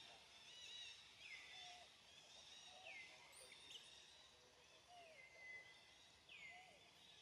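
Faint outdoor ambience with birds calling: a short high call sweeping down in pitch repeats about every one and a half seconds over softer scattered chirping.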